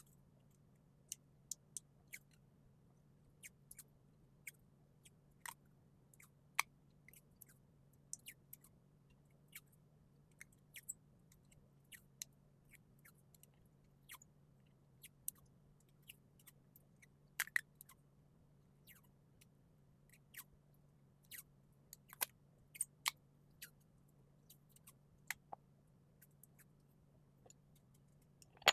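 Faint, irregular small clicks and taps, a few every couple of seconds, over a low steady hum.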